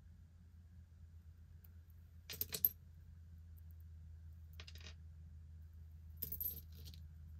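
Small metal jewelry pieces clinking together as they are picked up and handled: three short jingling clusters, about two, four and a half, and six seconds in, the first the loudest. A faint low hum sits underneath.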